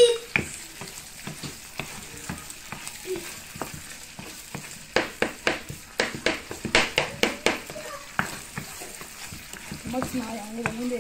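Tomato sauce sizzling in a frying pan as a spatula stirs it. The spatula scrapes and knocks against the pan in a run of quick strokes, busiest in the middle stretch.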